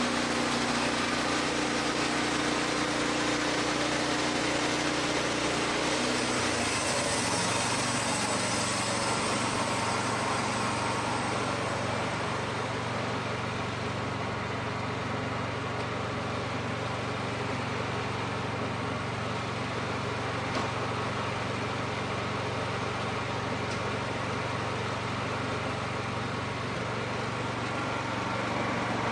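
Wood-Mizer portable band sawmill running, its engine a steady hum under constant noise; the engine's note changes about six seconds in.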